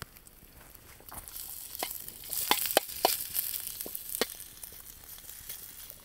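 Diced sheep tail fat sizzling as it melts in a steel sac pan over a wood fire. A metal spoon stirs it, with a few sharp clicks. The sizzle swells about two seconds in.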